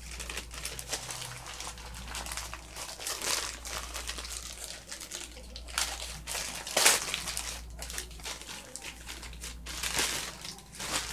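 Plastic packaging crinkling and rustling as it is handled and opened, with sharper crackles about three, seven and ten seconds in.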